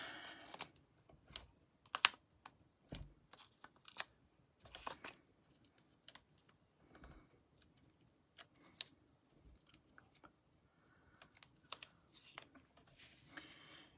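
Faint, irregular clicks and light taps of hands handling paper, peeling foam adhesive dimensionals off their backing and pressing them onto a cardstock label.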